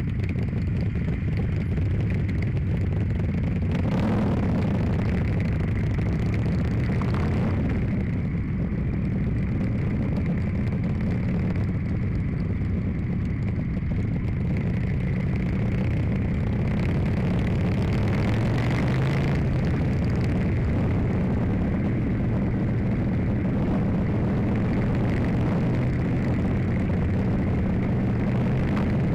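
Motorcycle engine running at road speed, its pitch rising and falling with the throttle, with steady wind noise over the microphone.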